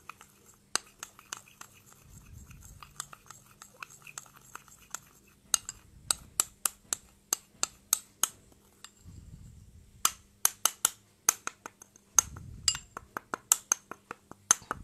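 Metal spoon clinking and scraping against a small bowl while stirring a thick cream-and-powder paste, in quick runs of taps that come thicker in the second half.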